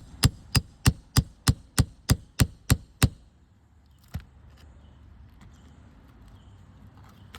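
Roofing hammer lightly tapping a brittle 3-tab asphalt shingle, about three taps a second for some three seconds, then one more tap a second later. The tapping is a test for wind damage: it knocks loose granules and shows up creased, broken matting.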